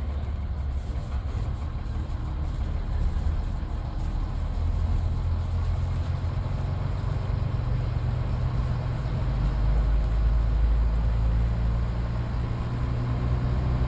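A BMMO D9 double-decker bus's 10.5-litre six-cylinder diesel engine running as the bus travels along, heard from on board as a steady low drone. The drone swells for a few seconds about ten seconds in.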